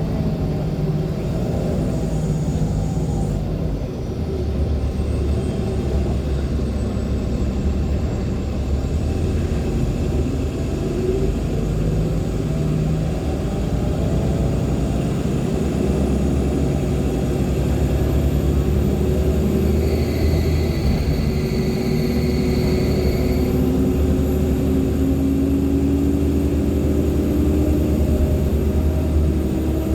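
Interior sound of a 2014 NOVA LFS Artic hybrid bus under way: the Cummins ISL9 diesel and Allison hybrid drivetrain running with a low hum. A thin high turbo whine rises and then holds, and in the later part the drivetrain tones climb in pitch as the bus picks up speed.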